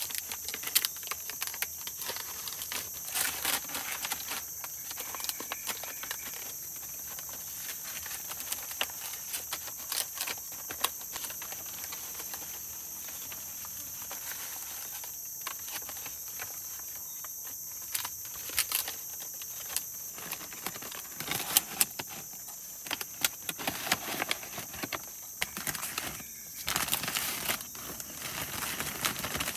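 A steady, high-pitched insect chorus of tropical forest, with irregular close rustles, crinkles and light knocks from hands handling material, busiest in the last few seconds.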